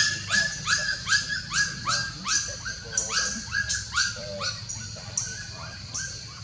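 Puppies yelping in a rapid series, about three short cries a second, each falling in pitch; the cries grow fainter after about four seconds.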